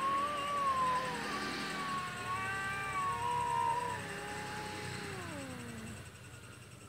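Cats yowling at each other in a fight standoff: long, wavering, overlapping cries, one sliding down in pitch in the second half.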